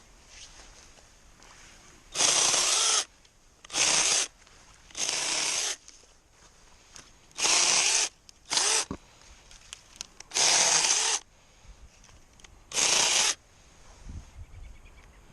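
Battery-powered Drill Pro mini chainsaw run in seven short bursts of under a second each, trimming thin willow sprouts. Each burst starts and stops abruptly.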